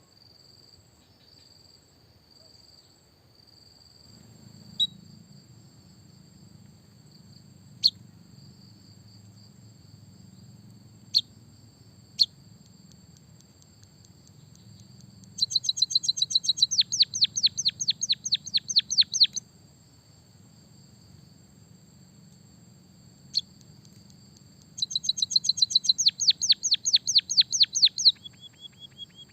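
White-headed munia (emprit kaji) singing canary-style song: a few sharp single chirps, then two fast trills of rapidly repeated down-sweeping notes, each lasting three to four seconds, over a steady high-pitched whine.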